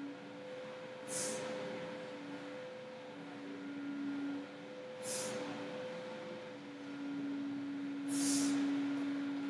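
Steady background hum with two pitched tones that fade in and out, crossed by three short hissing sounds, about one, five and eight seconds in.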